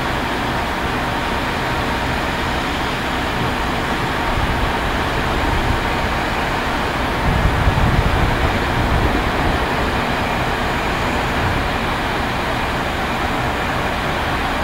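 Electric freight locomotive moving slowly, a steady running hum and rush with a low rumble that swells for a second or two around the middle.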